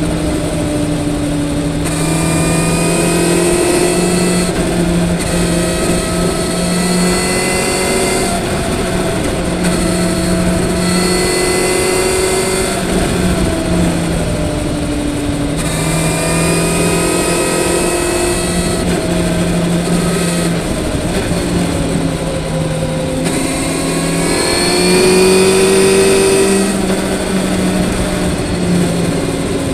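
Motorcycle engine running under way, its revs climbing and then dropping several times as it pulls through the gears, loudest near the end.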